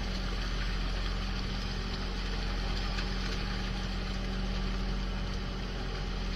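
Fishing boat's engine running steadily, a low hum, under the constant splashing of a netful of yellowtail thrashing at the water's surface.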